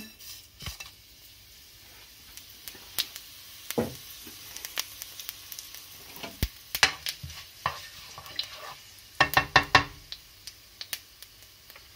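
Whole fennel seeds and dried red chillies sizzling faintly in hot oil in a non-stick wok, with scattered clicks and knocks of a utensil against the pan as they are stirred. A quick run of knocks about nine seconds in is the loudest part.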